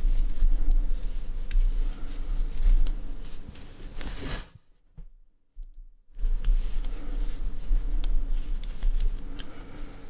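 A crochet hook working acrylic yarn into half double crochet stitches, giving faint rustling and small ticks over a steady low hum. The sound drops out to near silence for about a second and a half midway.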